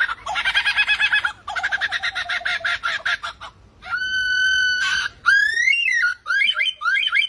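Lyrebird giving mimicked calls: two rapid chattering runs of notes, then a steady electronic-sounding beep lasting about a second, then repeated rising and falling whoops like a car alarm.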